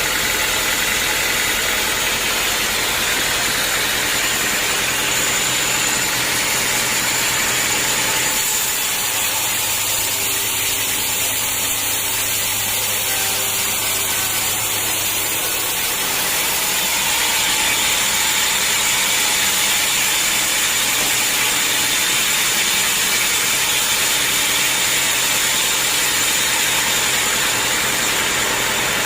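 Sawmill machinery running steadily while sawing logs: a constant engine drone under a dense, hissing noise of the saw. About a third of the way in the sound thins for several seconds, leaving a low hum, then fills back in.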